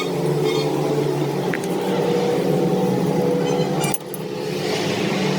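A workshop machine's motor running steadily with a low hum. About four seconds in the sound breaks off abruptly, and a hiss then builds up over the hum.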